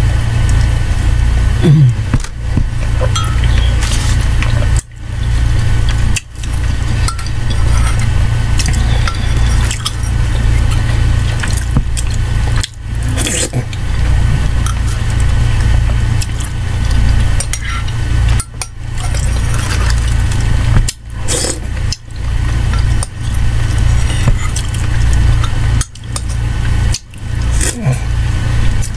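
A metal spoon clinks against a ceramic mug of soup while the soup is spooned up and sipped, over a steady low hum.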